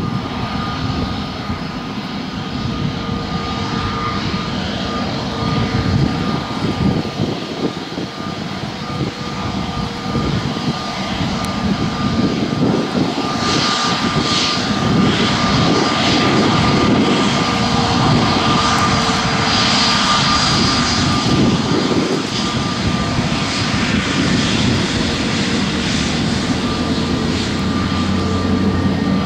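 Airbus A321neo's CFM LEAP-1A turbofan engines at taxi power as the airliner taxies past: a steady jet engine noise with a high, even whine, growing louder over the first half as it comes closer.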